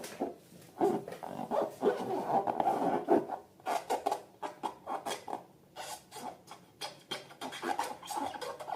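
Rubber balloons being rubbed and squeezed by hand, giving irregular short rubbery squeaks and rubbing strokes.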